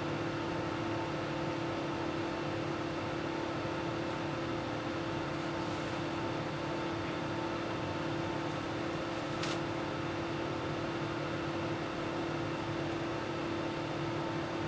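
Steady in-flight cabin noise of an Airbus A380: an even rush of air over a constant engine hum. A single light click about two-thirds of the way through.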